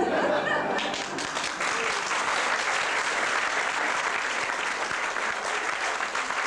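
Audience applauding at the end of a song, steady clapping from a full hall; the last sung note dies away just as the clapping starts.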